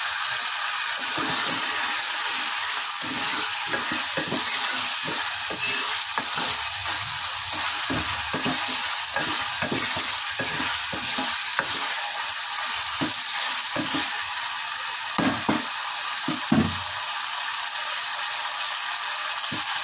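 Mutton and cluster-bean curry sizzling in an aluminium pressure cooker pan while a spoon stirs it, scraping and knocking against the pot. A few louder knocks come about fifteen to seventeen seconds in.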